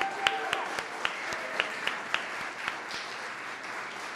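Audience applauding. A few loud, close hand claps come about four a second for the first couple of seconds, then the applause carries on evenly.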